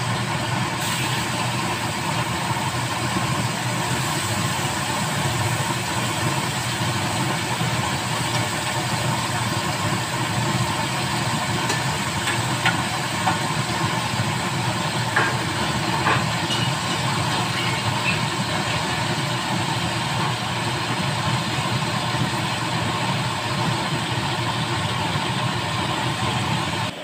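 Steady hiss and hum of chicken cooking over lit gas burners on a stovetop, with a few light clicks a little after halfway.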